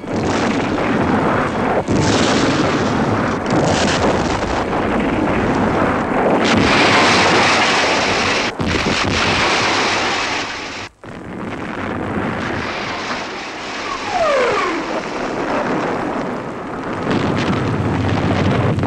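Continuous din of battle, artillery fire and explosions merging into a loud, steady rumble. It drops out sharply for a moment about eleven seconds in, and a short falling whistle is heard a few seconds later.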